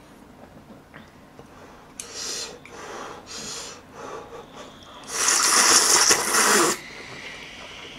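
Jjamppong noodles being slurped: a few short airy sucks, then one long, loud slurp lasting nearly two seconds, about five seconds in.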